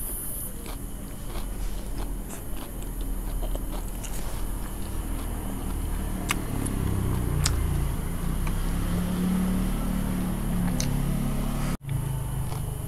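Close-up chewing and biting of crispy deep-fried spring rolls, with scattered sharp crunches. The sound drops out for an instant near the end.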